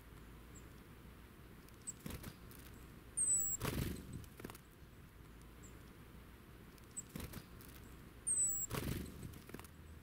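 Small woodland birds at close range: a few faint, thin high chirps, and twice, about five seconds apart, a short high squeaky note followed by a brief loud flutter of wings as a bird flies in near the microphone.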